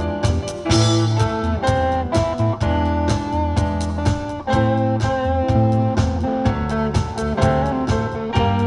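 Live instrumental combo band playing a tune with a steady beat: drum kit, bass guitar, guitar, keyboard and saxophone, with no vocals.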